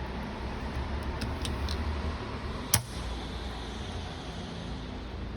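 Small metal clutch parts being handled, with a few light ticks and one sharp metallic click about three seconds in, over a steady low rumble.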